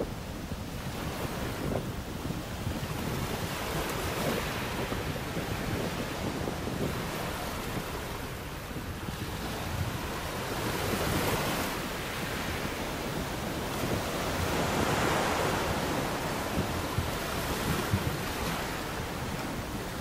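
Atlantic surf breaking and churning over rocky shore ledges, a continuous rushing wash with a low rumble that swells louder twice as bigger waves come in. Wind buffets the microphone throughout.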